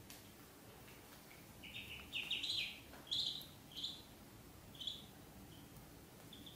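Ducklings peeping: a quick run of high chirps starting a little under two seconds in, thinning to a few scattered peeps near the end.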